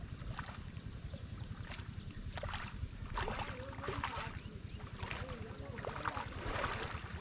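Wading steps and a flat leveling board sloshing and splashing through the water and mud of a flooded rice paddy, in uneven splashes about once a second. A steady low rumble, like wind on the microphone, and a thin steady high whine run underneath.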